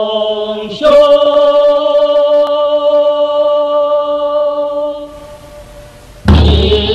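A voice singing slow, chant-like long notes: a held note gives way about a second in to a higher note held for about four seconds, which fades, and a new loud note begins near the end.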